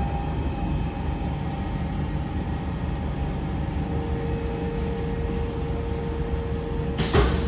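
Siemens C651 metro train running, a steady low rumble with thin steady tones; a new steady tone comes in about halfway, and a sudden loud rush of noise starts near the end.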